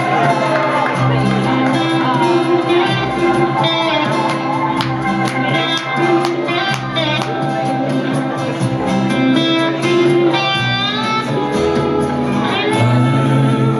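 Live music from an electric guitar and an acoustic guitar playing a slow song together, with plucked notes ringing out over steady low bass notes.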